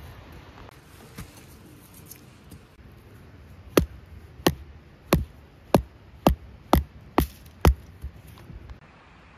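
Rubber mallet striking a steel hook tent stake to drive it into the ground: eight sharp strikes about two a second, then a few lighter taps as the stake goes in easily.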